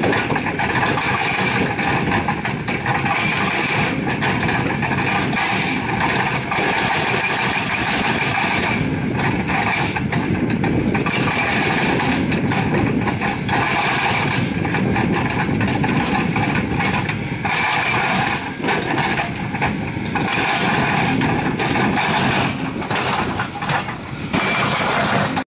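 Kobelco SK200 excavator breaking rock with a hydraulic breaker attachment: the engine running under load with the rapid, continuous hammering of the breaker, which eases off briefly a few times.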